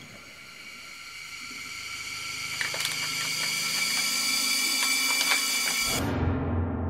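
A high-pitched ringing drone of many steady tones swells louder and louder, with a few sharp clicks. About six seconds in it cuts off abruptly and gives way to a low rumble.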